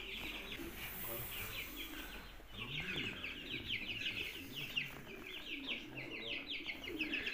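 Small birds chirping in a busy, continuous chorus of quick high chirps.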